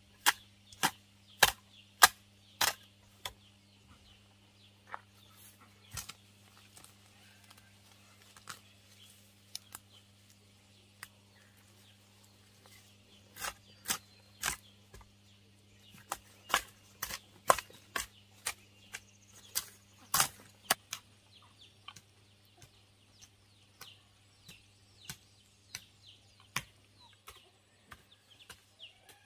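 Repeated sharp knocks, in quick runs of about one or two a second near the start and again midway, sparser between, over a steady low hum.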